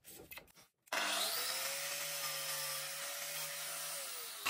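Makita GA5030R angle grinder switched on about a second in, spinning up quickly to a steady whine as it runs, then switched off near the end, its pitch falling as the disc winds down. The grinder is working again after its burnt-out switch was replaced.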